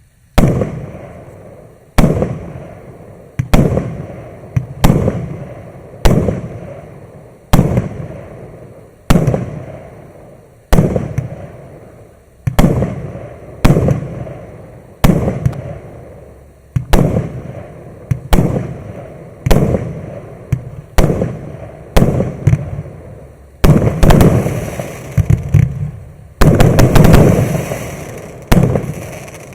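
A 20 and 30 mm calibre firework cake (PAGO PAGO MC119) firing its shots one after another: a sharp bang about every one and a half seconds, each followed by a fading crackle and rumble. Near the end the shots come fast in a dense run of crackling pops.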